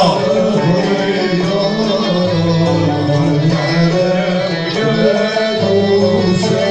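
Live traditional Middle Eastern-style ensemble music: an instrumental passage with violin and other string instruments playing a continuous melody.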